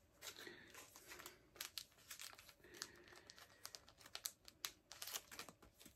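Faint, irregular crinkling and small crackles of a clear plastic comic-book sleeve being handled while tape is picked and peeled off it.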